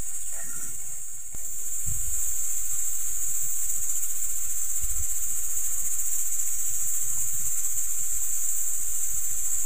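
Crickets chirring, a steady high-pitched drone, with soft, irregular low knocks and rubs from hands mixing ground spice into cut tamarillos in a metal bowl.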